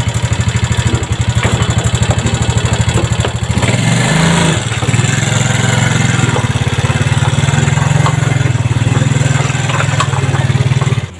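Small motor scooter engine running with a rapid, even putter, rising in pitch about four seconds in as it pulls away, then holding steady.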